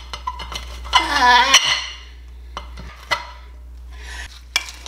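Sharp clicks and taps of a spoon and plastic pudding cup being handled, about half a dozen spread through the moment, with a short vocal sound about a second in.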